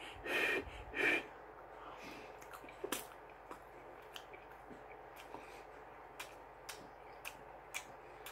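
Person eating instant noodles: a few short loud mouth and breath sounds in the first second, then mouth-closed chewing with faint wet clicks, roughly one or two a second.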